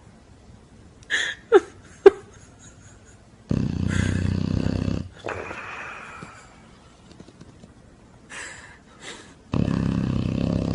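Snoring: two long, rattling snores a few seconds apart. The first is followed by a whistling wheeze that falls in pitch, and a few short snorts come before each.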